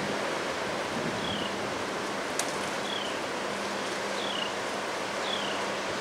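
Strong, steady wind blowing through bare trees, a continuous rushing noise. Short high falling chirps repeat about once a second over it.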